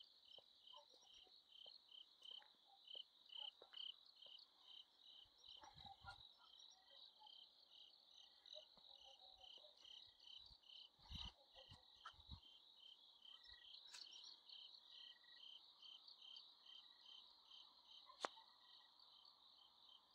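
Crickets chirping steadily, faint, a high pulsing trill at about three chirps a second. A few low thumps come in the middle, and there is one sharp click near the end.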